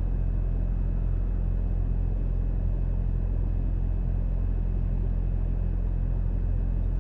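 A vehicle engine running steadily: a low, even rumble with a constant hum, no revving or change.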